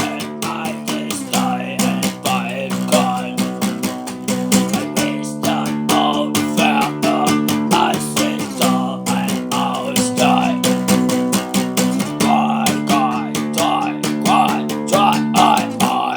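Music led by a strummed guitar: quick, steady strumming with the chord changing every three to four seconds.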